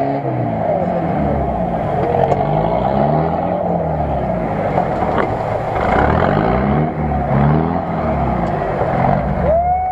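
Off-road 4x4's engine revving up and down repeatedly as it drives through a deep muddy water pit, with the churning of water and mud under it.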